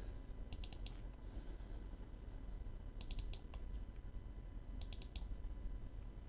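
Computer mouse button double-clicked three times, each a quick cluster of sharp clicks, a couple of seconds apart, over a faint low hum.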